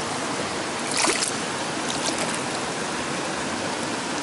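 Mountain stream running steadily over boulders, with a brief splash at the water's edge about a second in and a couple of fainter ones shortly after.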